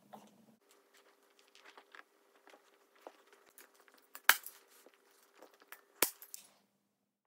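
Hand staple gun fired twice, two sharp snaps a little under two seconds apart, among soft rustling and small clicks from fabric being handled.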